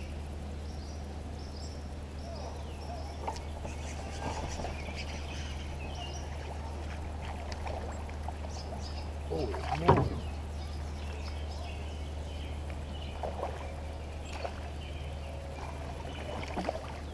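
Outdoor lake sound from a kayak: a steady low hum with faint high bird chirps and small handling clicks, and one brief louder noise about ten seconds in.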